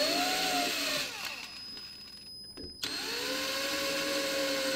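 Cordless drill with a small 5/64 bit drilling pilot holes into a wooden tabletop: the motor whine eases off about a second in, then the drill starts again about three seconds in for the next hole.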